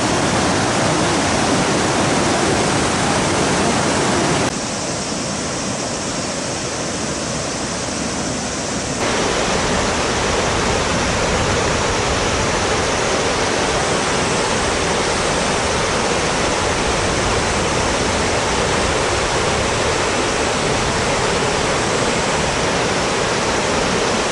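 Whitewater river rapids rushing, a steady, even wash of water noise. About four seconds in it turns quieter and thinner for some four seconds, then comes back at full strength.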